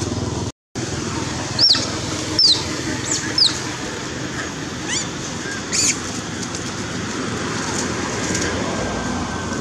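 Young macaque giving short, high-pitched squeals, several falling in pitch and about a second apart, while it is grabbed and wrestled by another monkey. A steady outdoor background rumble runs underneath, and a brief dropout cuts in just before the squeals start.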